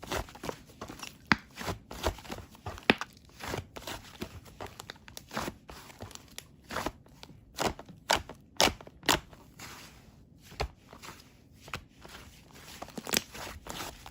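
Pink whipped-cream-textured slime squished and pressed by hand, giving irregular sharp crackling pops and squelches, a few of them much louder than the rest.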